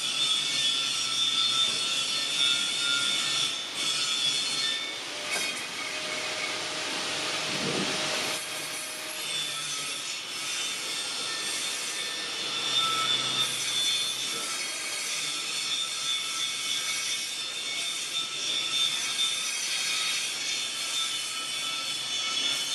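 Workshop machine working metal, with a steady high squeal over a grinding hiss. It swells into a louder rushing surge about six seconds in and eases back about three seconds later.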